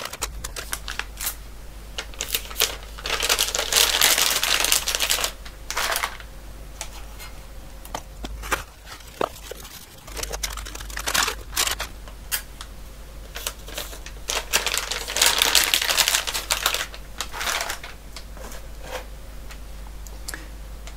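Plastic anti-static bags crinkling as circuit boards are slid into them, with scattered clicks and knocks from handling the boards. Two longer stretches of crinkling stand out, a few seconds in and again past the middle.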